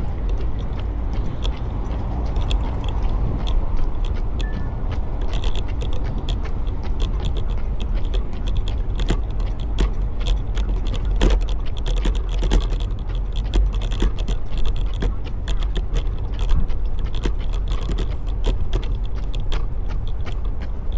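A runner's footsteps, a quick run of sharp clicks and taps over a steady low rumble of wind and motion on the microphone.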